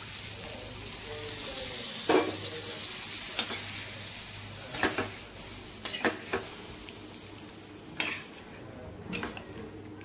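Hot water poured into a pan of fried spice paste and potatoes, sizzling, while a metal spatula stirs the curry. The spatula clinks and scrapes against the pan every second or so, with the sharpest knock about two seconds in.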